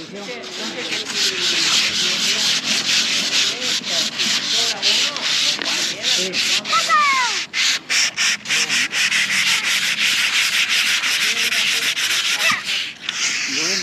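Several people hand-sanding the fibreglass roof of a camper truck's cell with sandpaper, a dense scratchy rasp of many overlapping back-and-forth strokes. The old paint is being sanded off before the roof is repainted with a waterproof coating.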